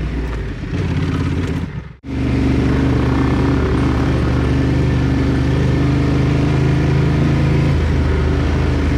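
Motorcycle engine running under way, the sound dropping out abruptly about two seconds in and coming back as a steady, even engine note.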